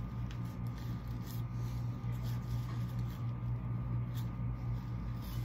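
Steady low hum fills the room, with faint light rustles and clicks of a plastic takeout bag being handled.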